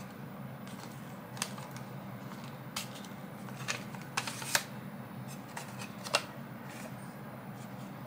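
Plastic clicks and light scraping as the battery cover of a Carrier split-type aircon remote is slid off by hand. There are a handful of sharp clicks, the loudest about four and a half seconds in.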